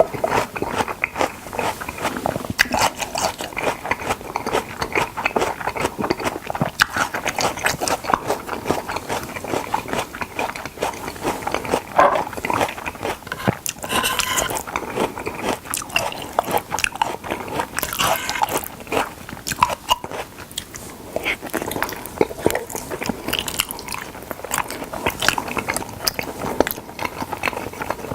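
Close-miked eating of salmon: continuous biting and chewing, a dense run of quick wet mouth clicks with no pauses.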